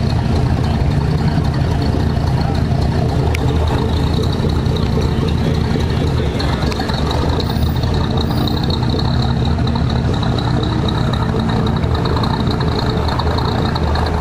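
C3 Corvette's V8 engine running steady and low as the car rolls slowly away at low speed.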